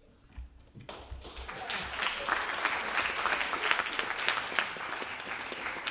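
Audience applauding: clapping starts about a second in and swells into a full, steady round of applause.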